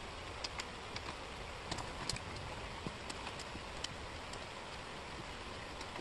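Small wooden jigsaw puzzle pieces being handled, giving light, irregular clicks and taps as they knock against each other and the table, about a dozen in all, over a steady hiss.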